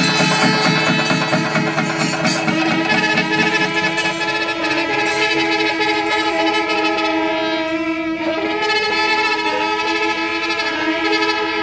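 Kerala Pandimelam ensemble: rapid, even chenda drum strokes fade over the first few seconds, while kombu horns and kuzhal hold long blaring notes. The notes shift pitch about two-thirds of the way through.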